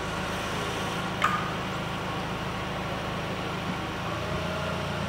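Fork truck engine idling with a steady low hum, and a faint metallic click about a second in.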